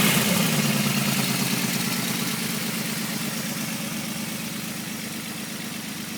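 Volkswagen VR6 narrow-angle six-cylinder engine settling back toward idle after a rev, its sound getting gradually quieter. The engine has a strange noise that appeared after two weeks without running, together with a loss of power.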